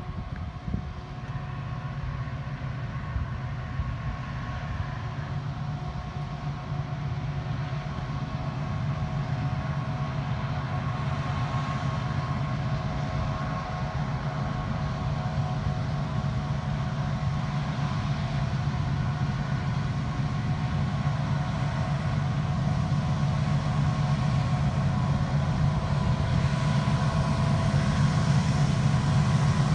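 Diesel locomotives at the head of an approaching Union Pacific stack train: a steady low engine rumble with a few steady whining tones above it, growing gradually louder as the train nears.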